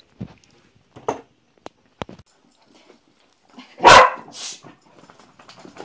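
A dog barks once, loudly, about four seconds in, followed half a second later by a fainter, higher sound; a few small clicks and knocks come before it.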